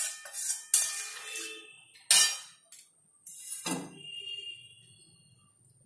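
Metal spatula knocking and scraping against a metal kadai while stirring a gravy, with several sharp clanks. The last, about three and a half seconds in, comes as the spatula is laid down in the pan and leaves a brief metallic ring.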